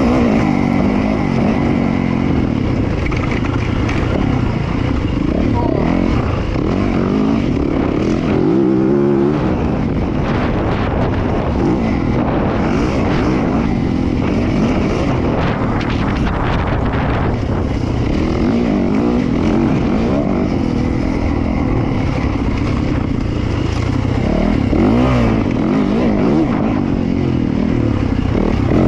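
Dirt bike engine under way, revving up and easing off over and over as the rider accelerates and backs off along the track.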